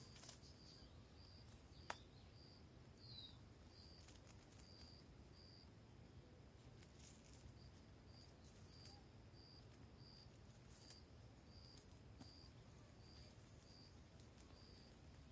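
Near silence with a faint insect chirping steadily, about two short high chirps a second. One soft click about two seconds in.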